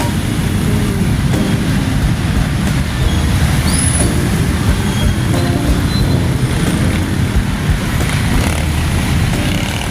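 Steady low rumble of a vehicle driving along a road: engine and tyre noise with no break.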